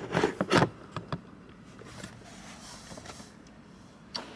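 Handling noise from a phone being moved and set in place inside a car: a quick run of rubbing and knocks on the microphone in the first second, then a few clicks, then a faint steady car-cabin hum.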